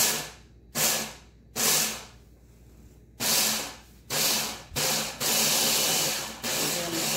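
Ninja mini food chopper's motor whirring as its top is pressed to chop grated carrots. It is pulsed six times in short spurts, then held on almost continuously for the last two seconds or so, with one brief break.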